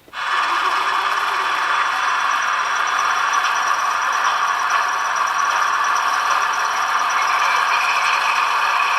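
Sound decoder of a PIKO SM31 model diesel locomotive playing its diesel engine sound through the model's small speaker. It switches on suddenly, then runs steadily with a thin sound and no bass.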